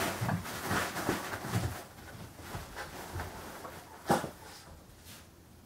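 A dog scrabbling at and jumping on a fabric bean bag bed, with rustling of cloth and filling and thuds of paws. It is busiest in the first two seconds, then thins out. One sharp knock comes about four seconds in.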